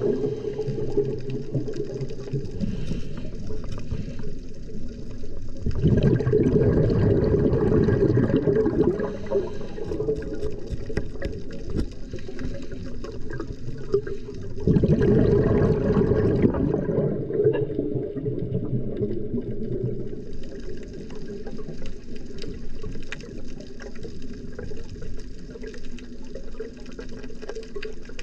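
Scuba regulator exhaust underwater: the diver breathes out in long rushes of bubbles three times, several seconds apart. Between them come quieter hiss and faint clicking.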